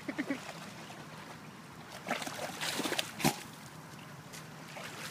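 Water sloshing and splashing around a dog wading in the shallows at the bank, with a short burst of splashing about two seconds in that ends in a sharp knock.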